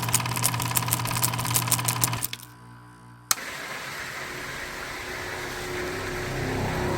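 A fast mechanical clatter of about eight ticks a second over a steady hum, which cuts off about two seconds in. A sharp click follows, then a motor-like rumble that builds steadily.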